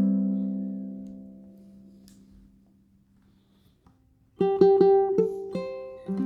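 Tenor ukulele played solo: a strummed chord rings and fades away over about three seconds. After a short pause, a few more chords are plucked and strummed, starting about four and a half seconds in, with another strum near the end.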